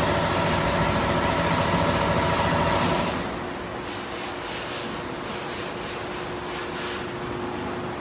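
Factory machinery running with a steady multi-tone whine over a noisy hum, which drops away about three seconds in, leaving a quieter steady machine hum.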